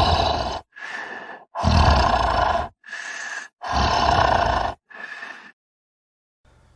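Zombie sound effect: a voice growling and groaning in repeated bursts, loud guttural groans alternating with quieter raspy breaths. It stops about a second before the end.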